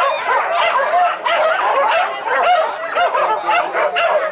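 A pack of boar-hunting dogs yelping and whining, many voices overlapping in a continuous chorus of short rising and falling cries.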